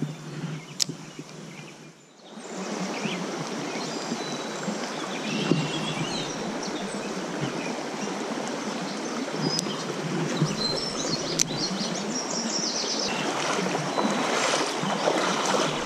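A small trout stream running over a shallow riffle, a steady rushing that grows a little louder near the end. Short bird chirps and a few sharp clicks sound over it.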